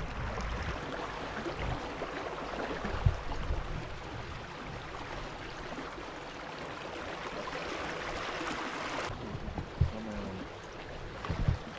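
Water rushing and gurgling past a small inflatable boat under way: an even hiss with a few low thumps. The hiss thins out about nine seconds in.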